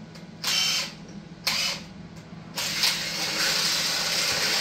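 Power drill run in two short bursts, then steadily, drilling holes in metal.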